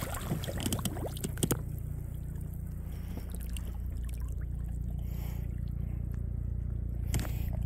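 Water splashing and trickling as a stringer of lingcod and halibut is moved in the water beside a kayak, over a low steady rumble. A few sharp handling clicks come in the first second and a half, and another near the end.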